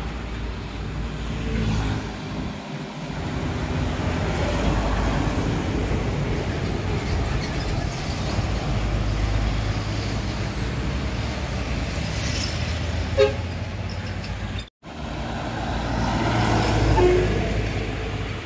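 Heavy trucks loaded with sugarcane driving past, their engines making a steady low rumble, with a short horn toot about 13 seconds in.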